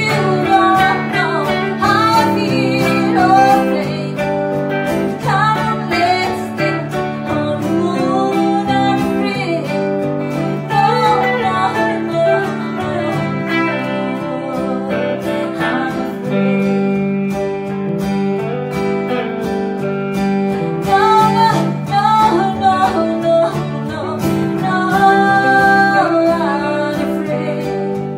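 A woman singing a song while strumming an acoustic guitar, accompanied by an electric guitar. The melody is sung in phrases of a few seconds over steady strummed chords.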